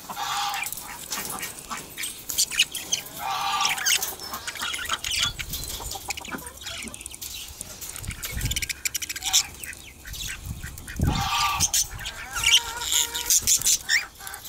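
Budgerigars chattering and chirping, a dense run of short high calls and squawks, with two low thuds about eight and eleven seconds in.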